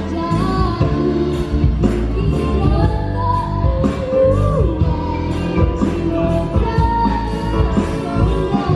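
A woman singing a Malay pop song live into a microphone, backed by a live band with a steady drum beat.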